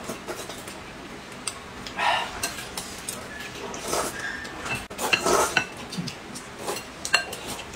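Noodle eating with chopsticks and a spoon: several slurps, the loudest about five seconds in, among light clinks of a metal spoon on a glass cup and chopsticks on porcelain bowls.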